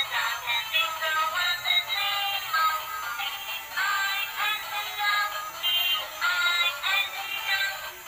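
Battery-powered light-up toy train playing its built-in electronic tune: a continuous synthetic melody, thin and tinny with no bass.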